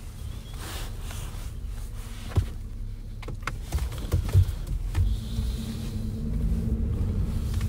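Car driving, heard from inside the cabin: a steady low rumble of engine and road noise, with a few short knocks in the middle and the engine note growing a little stronger near the end.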